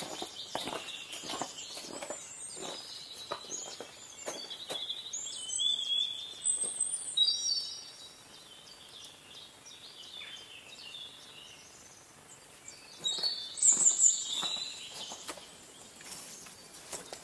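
Small birds singing and calling in short whistled phrases, with footsteps on icy old snow through the first half and again about thirteen seconds in.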